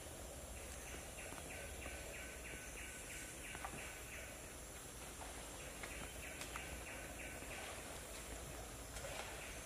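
Forest ambience: runs of a rapid, evenly repeated animal call, about four notes a second, that stop and start again twice, over a steady high insect hiss.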